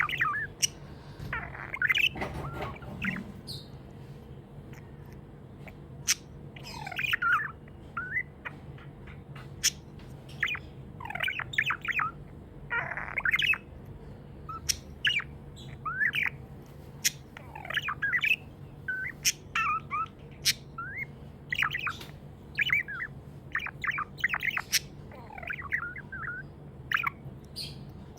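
Pet budgerigars chirping and chattering continuously, a rapid run of short, warbling calls with sharp clicks scattered among them.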